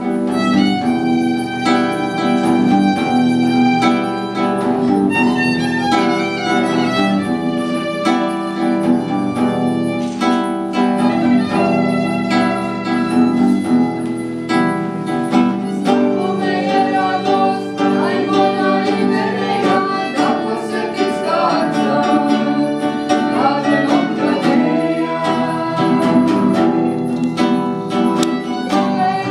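Live acoustic guitar strumming chords under a bowed violin melody, with a woman singing into a microphone.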